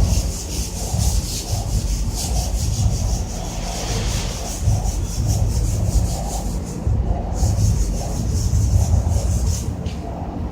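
Rapid back-and-forth hand rubbing strokes, about four a second, cleaning the surface of a water heater tank, with brief pauses and a steady low rumble underneath.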